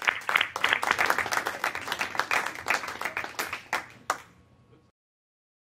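A small group of people clapping, a thick patter of hand claps that thins out after about four seconds, with one last sharp clap before it fades away.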